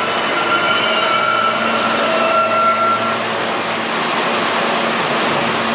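R143 subway train running through the station: a steady, loud rumble of wheels on rail under a low hum, with high whining tones that fade out about three seconds in.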